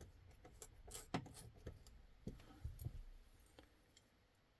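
Faint small clicks and light scraping of metal pocket-knife parts being handled while the pivot is fitted during reassembly, dying away about three seconds in.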